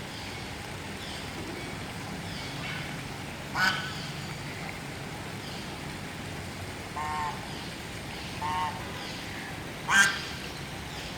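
Birds calling: four short, loud pitched calls, the first about three and a half seconds in and the last, the loudest, near the end, over faint high chirps repeating throughout.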